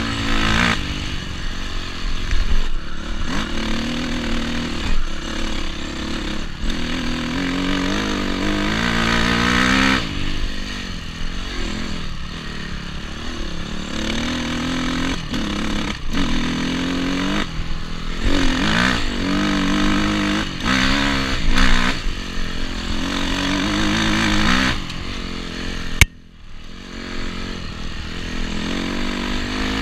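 Honda CRF250R's single-cylinder four-stroke engine revving up and down over and over as the rider works the throttle and gears. About 26 seconds in a sharp click comes and the engine sound falls away for about a second before picking up again.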